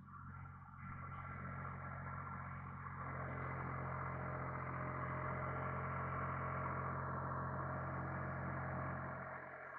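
International Harvester 385 diesel tractor running under load while bush hogging, a steady engine drone mixed with the rotary cutter's whir. It grows louder about a second in and again about three seconds in, holds through the middle, and eases off near the end.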